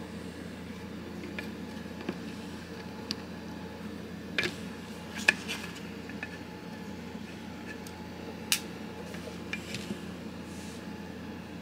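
Small metallic clicks and taps of a precision screwdriver and loose parts against a Spyderco Paramilitary 2 folding knife and its tray as the handle's Torx screws are backed out, over a steady low room hum. The sharpest click comes a little after five seconds in, another at about eight and a half seconds.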